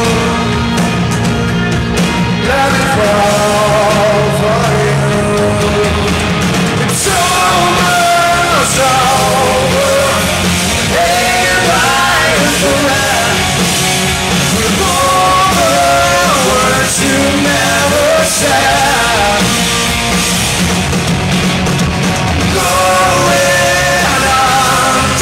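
Live rock band playing a song: electric guitar, bass and drums, with a male lead vocalist singing over them.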